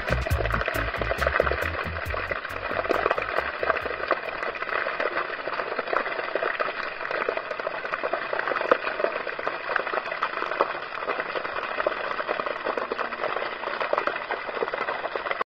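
Water from a sculpture fountain spattering and dripping down the stone column onto paving: a steady crackling splash. A beat of background music fades out over the first few seconds, and the sound cuts off suddenly near the end.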